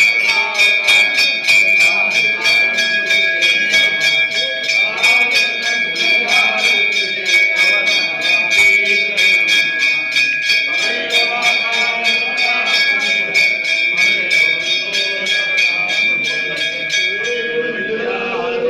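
Temple bells rung rapidly and continuously during aarti, each quick strike feeding one steady ringing tone, with voices singing the aarti underneath. The fast clanging stops near the end.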